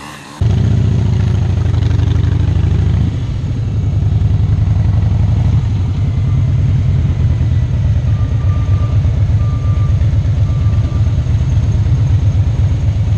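Harley-Davidson V-twin motorcycle engine running under way, heard from the rider's position. It starts abruptly, and the engine note changes about three seconds in.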